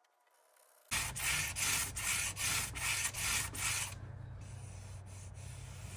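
Sandpaper rubbed back and forth by hand over hardened Bondo body filler on a wooden furniture edge. The rasping strokes come about three a second from about a second in, then turn softer near the end, over a steady low hum.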